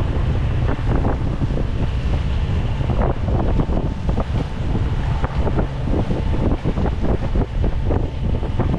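Wind buffeting the microphone, with water rushing and splashing along the hull of a sailing yacht under way.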